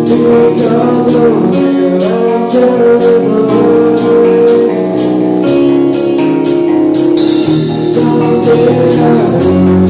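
A live band playing amplified music, with drums keeping a steady beat of about two hits a second under sustained pitched instrument lines.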